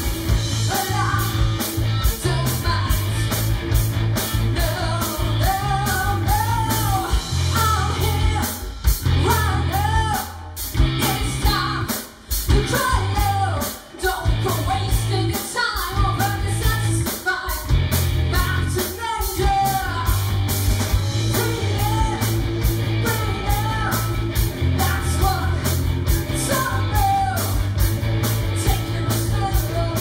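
Rock band playing live: a woman singing lead over electric guitars, bass guitar and a drum kit keeping a steady beat. Between about ten and twenty seconds in, the band cuts out briefly several times between short hits.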